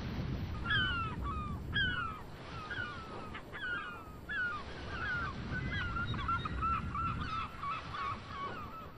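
A flock of birds calling: many short honking calls that drop in pitch, starting about a second in and coming closer together after the middle, over a steady low rushing noise.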